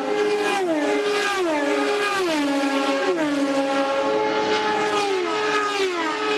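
IndyCar race cars passing one after another at full speed. Each engine's high whine drops in pitch as the car goes by, about once a second.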